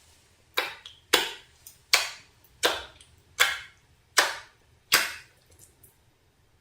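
Homemade slime being handled, giving seven sharp pops in a steady rhythm, about one every three-quarters of a second.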